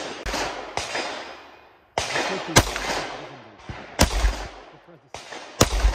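A semi-automatic pistol fired in a string of about eight shots, unevenly spaced half a second to a second apart. Each sharp crack is followed by a fading echo, and some shots sound fainter than others.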